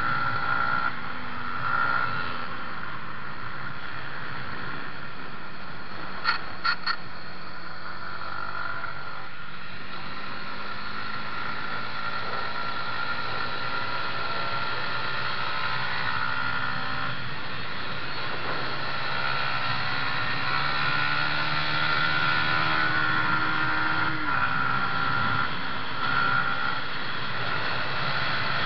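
Yamaha MT-125's single-cylinder four-stroke engine running hard at track speed over heavy wind rush. Its pitch climbs slowly and then drops suddenly near the end, and a few quick clicks come about six seconds in.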